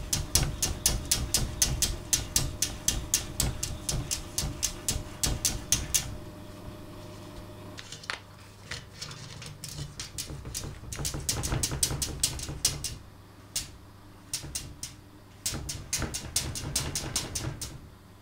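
Cat's claws scratching and tapping on the glass pane of a wooden sliding door, in quick strokes about five a second for the first six seconds, then in shorter spurts.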